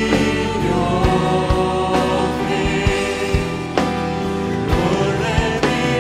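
Live worship band playing a Christian praise song: several voices singing together over drum kit, acoustic guitar and keyboard, with regular drum hits.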